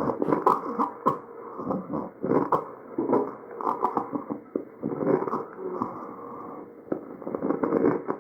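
Tracheal breath sounds heard through an electronic stethoscope: repeated noisy breaths broken up by many short crackling clicks, with a faint low steady tone under them, the adventitious sounds of an airway with abnormal crackles and rhonchi.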